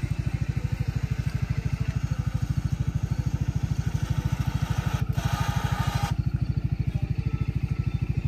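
ATV engine idling with a steady, rapid pulsing beat. About five seconds in, a higher-pitched whine sounds over it for about a second.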